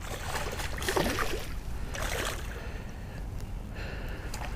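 A hooked bass splashing at the surface close to the bank as it is played in, with two splashy surges about a second apart.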